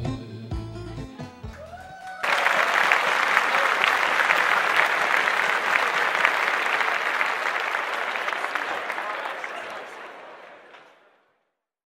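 The last notes of the song's musical accompaniment die away, then applause starts suddenly about two seconds in, holds, and fades out near the end.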